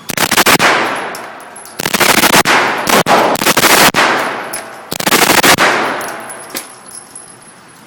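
M4 carbine (5.56 mm) firing on full automatic in several short bursts of half a second to a second each, with a reverberant tail after each burst and a stray single shot between.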